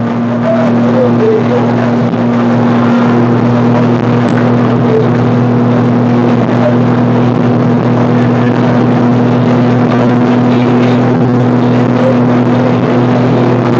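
Motorboat engine running at a steady speed, a constant low drone over the rush of water and wind.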